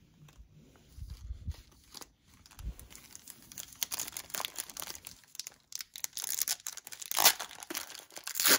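A 1990 NFL Pro Set trading card pack's wrapper being torn open and crinkled by hand. It is quiet handling with a few soft thumps at first, then the crinkling and tearing build from about three seconds in and are loudest near the end.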